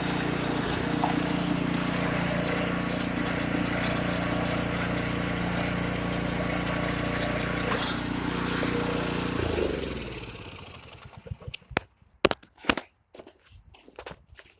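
Small snowblower engine running steadily, then shut off about ten seconds in, its pitch falling as it winds down to a stop. After it stops, a few irregular crunches and knocks.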